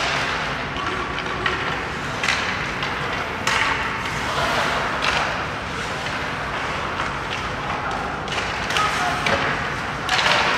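Ice hockey play: steady noise of skates on the ice, broken by several sharp clacks and thuds of sticks, puck and bodies against the boards.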